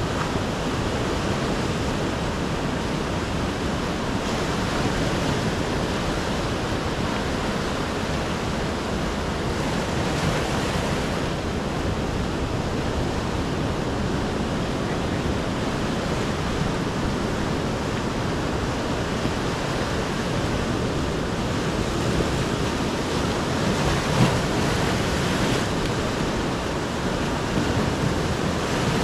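Sea surf breaking continuously on a rocky shore, swelling and easing, with one brief louder crash about 24 seconds in.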